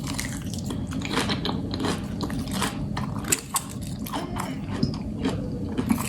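Close-miked crunching and clicking of a salad, a dense run of small crisp clicks with no let-up.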